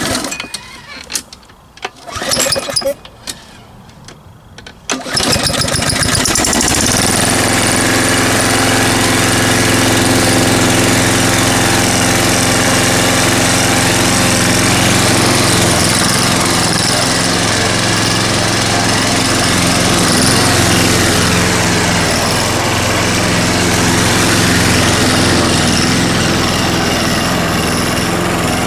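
Petrol lawn mower being pull-started: a few short pulls of the recoil cord, then the engine catches about five seconds in and settles into a steady run.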